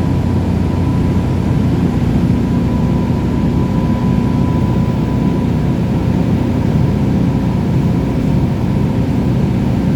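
Loram LRG-32 rail grinder's diesel engines running: a steady low drone, with a thin whine above it that fades about halfway through.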